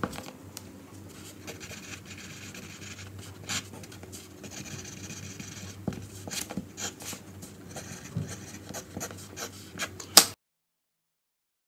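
Pencil writing on paper in a notebook: steady scratching with small taps and paper handling. About ten seconds in comes a sharp knock, then the sound cuts off to silence.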